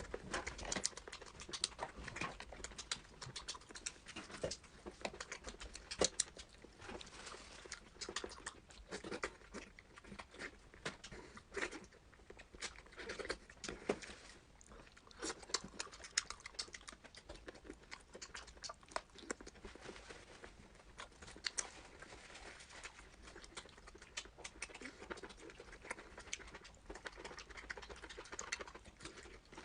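Close-miked eating: chewing and mouth sounds, a dense irregular run of small clicks and smacks.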